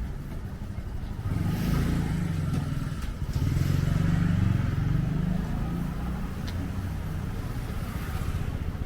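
Street traffic: motor vehicles passing close by, their engine and tyre noise swelling about a second in and again from about three to five seconds.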